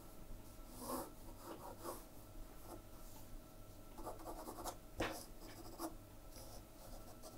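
Graphite pencil drawing light strokes on paper: faint scratchy runs of strokes, one cluster about a second in and another about four seconds in, with a sharper tick of the pencil a second later.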